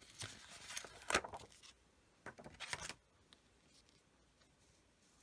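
Rustling and light clicks of clear stamp sheets and paper being handled on a craft table, with a sharper click about a second in and a few short rustles before it falls quiet near the middle.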